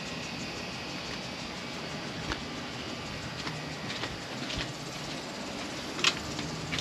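Steady outdoor background noise, an even low rumble and hiss, with a few faint light clicks about two, four and a half and six seconds in.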